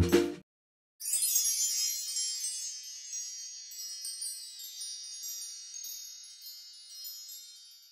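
Background music cuts off, and after a brief silence a cluster of high, tinkling wind-chime tones rings out together and slowly fades away.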